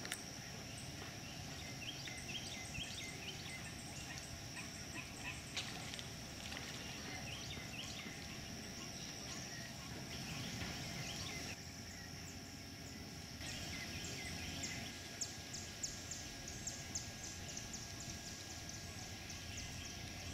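Quiet wetland ambience: a steady, high insect drone with frequent short bird chirps over a low background rumble.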